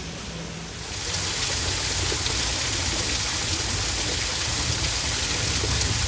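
Steady rushing water, like a stream or waterfall, growing louder about a second in, over a low rumble.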